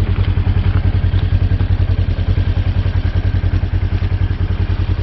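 Polaris Ranger UTV engine idling close by, a steady low, fast, even pulse.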